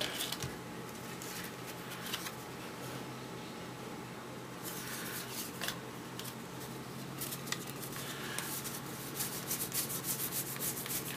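1992 Donruss baseball cards being thumbed through by hand, card stock rubbing and flicking against card stock. Quiet for the first few seconds, then quick flicks that come closer together in the second half.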